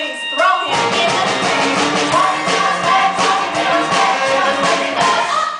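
Stage musical number: cast singing over an instrumental accompaniment, the accompaniment filling out under a second in.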